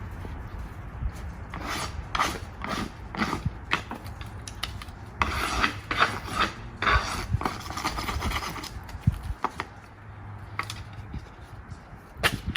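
Wood scraping and rubbing in irregular strokes, with a denser run of rasping scrapes through the middle.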